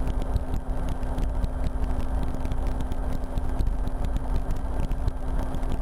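RotorWay experimental helicopter in steady cruise: the engine and rotor make a continuous drone with a constant low hum, heard from the cockpit.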